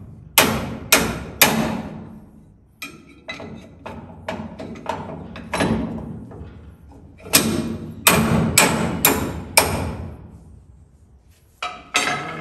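Hammer blows on iron, in runs of three to five ringing strikes about half a second apart, with lighter taps between the runs. The metal is poor enough that a part has just broken under the work.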